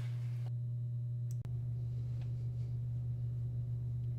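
Steady low hum with a faint click about a second and a half in.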